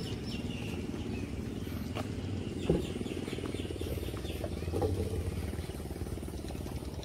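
Small boat engine running at a low, even chug, with birds chirping in a quick run of short falling calls over the first few seconds and a few light knocks.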